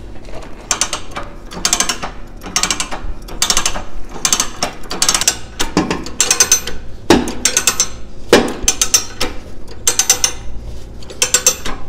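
Ratchet jack on a Ground Hog arena tool being worked by hand to adjust the I-beam and roller. Its pawl clicks in a quick burst with each stroke of the handle, roughly one stroke a second, with a few duller knocks mixed in.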